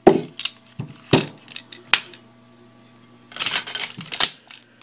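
Sharp clicks and clacks from handling an unloaded Beretta PX4 Storm Compact 9mm pistol during a safety check: three single clacks in the first two seconds, then a quick run of clicks about three and a half seconds in.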